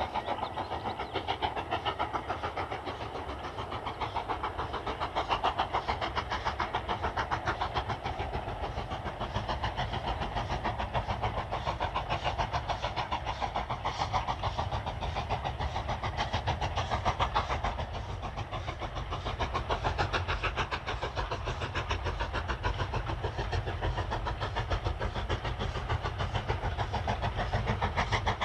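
Steady mechanical running noise with a fast, even pulse, continuous throughout.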